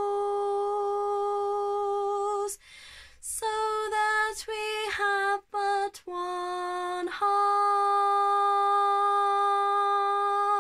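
A woman singing unaccompanied: a long held note, a brief pause, a run of short separate notes in the middle, then another long held note near the end.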